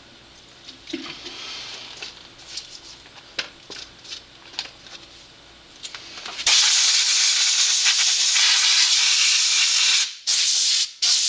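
A few faint clicks and rustles of handling, then about six and a half seconds in an air compressor's blow gun opens with a loud steady hiss of compressed air, blowing rubbing alcohol and dirt off an RC buggy's chassis. The blast briefly stops twice near the end.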